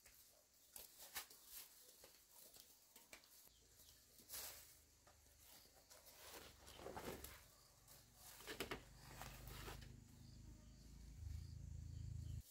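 Near silence: faint scattered clicks and rustling, with a low rumble that builds through the second half.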